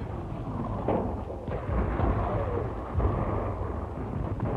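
Artillery fire on a film soundtrack: continuous low rumbling with several heavier booms, one about a second in and another near three seconds in.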